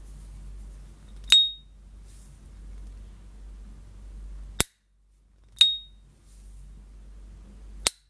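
Gold-plated S.T. Dupont lighter's lid flicked open twice, each time with a short, clear high-pitched ping. After each opening the lid snaps shut with a sharp dry click.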